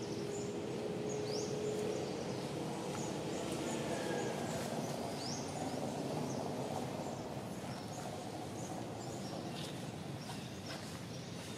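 Outdoor forest ambience: a steady background rush with short, high chirps scattered throughout.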